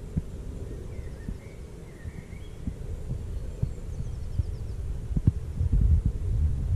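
Wind buffeting the microphone in a low rumble with irregular thumps, growing louder near the end. Faint bird chirps and a short high trill sound in the background.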